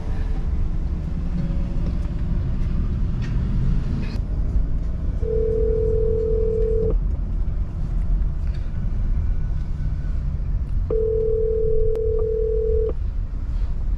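Telephone ringback tone of an outgoing call ringing out: two steady rings about two seconds long with about four seconds between them, the first about five seconds in. Under the rings is the low rumble of a moving car cabin.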